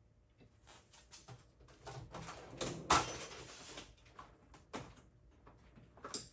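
Metal hand tools clinking and clattering as a wrench is picked out and handled, with one sharp knock about three seconds in.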